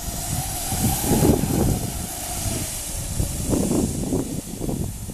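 Wind rumbling in gusts on the microphone over a Honda Civic sedan's engine. The engine's faint note rises and then falls in pitch over the first few seconds as the car moves slowly across grass, towing a rider on cardboard.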